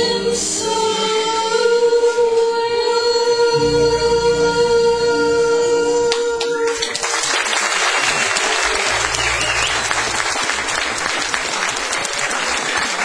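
Two women's voices holding the final sung note of a duet over keyboard chords, cutting off about seven seconds in; then the audience applauds.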